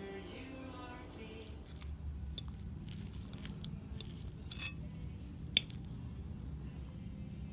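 Small clicks and taps of a utensil on a dish, with soft squishy sounds, over a low steady hum, and one sharp click about five and a half seconds in. Background music fades out in the first moments.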